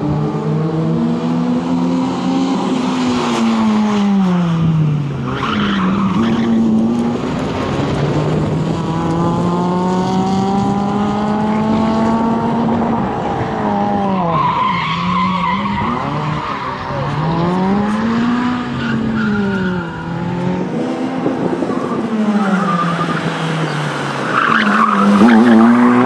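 Suzuki Swift rally car driven hard, its engine revving up and dropping back again and again through gear changes and lifts for corners, with tyres squealing on the turns. The loudest burst comes near the end as the car passes close.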